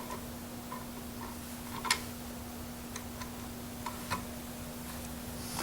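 Scattered light clicks and taps, about eight of them at uneven spacing, from a screwdriver turning the screw that holds a Ruger 10/22 rifle's action in its stock. A steady low hum runs underneath.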